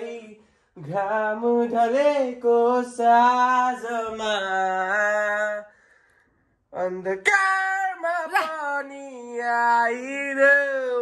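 A single voice singing without accompaniment: a melody of long held, gliding notes in two phrases, with a short break about six seconds in.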